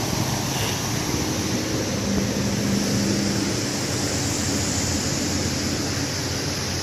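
Steady rush of fast-flowing floodwater, with a faint low hum in the middle.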